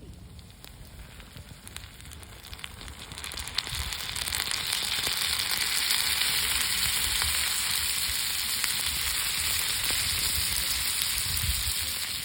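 Food sizzling in a hot pan. The sizzle swells in about three to four seconds in and then holds steady, with small pops and crackles through it.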